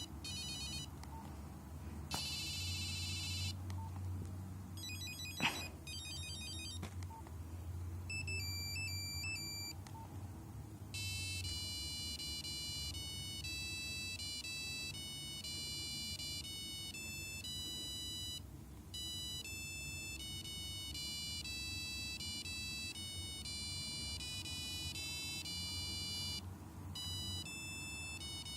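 Nokia 5125 mobile phone playing its ringtones: several short ringtone patterns in quick succession, with a sharp click about five and a half seconds in, then from about eleven seconds a longer beeping melody played one note at a time, breaking off briefly twice.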